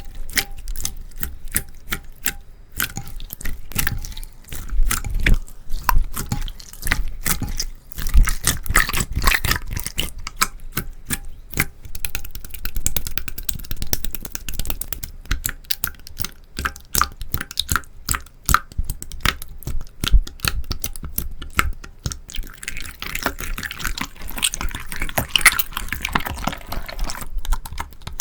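Slime being squeezed and pressed by hand, making a dense run of wet clicks and pops, thickening into a crackling patch near the end.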